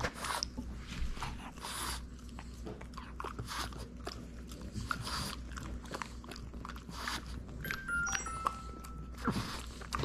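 A dog crunching and chewing a hard Milk-Bone dog biscuit in irregular crunches, with a few short high squeaky tones about eight seconds in.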